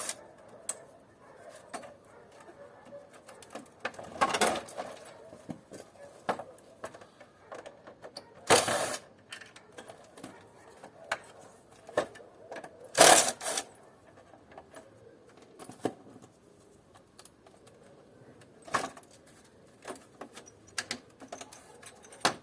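Hand tools working on the metal parts of an air conditioner being dismantled for scrap: scattered clicks, taps and ticks, with three louder sharp knocks about four, eight and a half, and thirteen seconds in.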